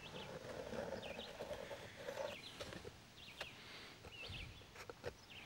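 Faint ambience of small birds chirping now and then, with a few light clicks and a muffled rustle over the first two seconds.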